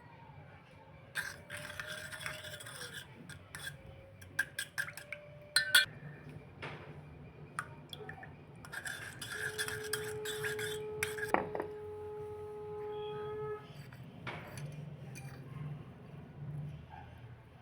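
Kitchen utensils clinking and scraping: a spoon or ladle knocking against metal bowls and dishes in scattered clinks, with two longer stretches of scraping and stirring.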